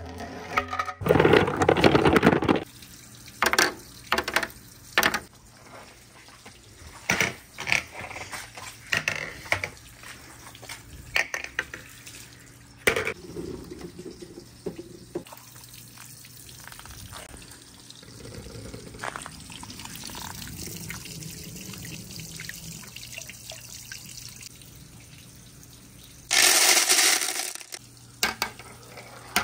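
Marbles clicking and knocking as they run down a marble run, with water running and a steady low hum under it. Two loud rushing bursts stand out, one about a second in and one near the end.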